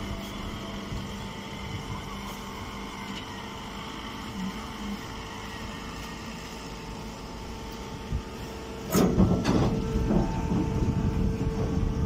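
Steady hum of a straw baling press's machinery running, with several constant tones. About nine seconds in, a loud burst of rustling and knocking lasts around three seconds.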